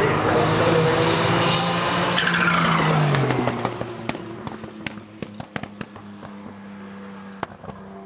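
Porsche 911 race car's engine at high revs passing close by, its pitch falling as it goes away. It then fades into the distance with a scatter of sharp pops.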